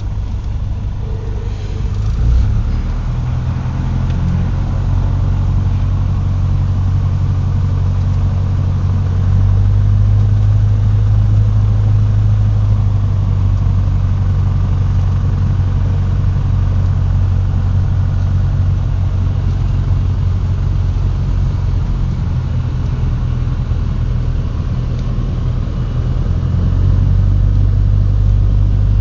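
Cessna 150's four-cylinder piston engine and propeller giving a steady low drone. It grows louder about two seconds in and again around nine seconds, eases briefly, then rises again near the end.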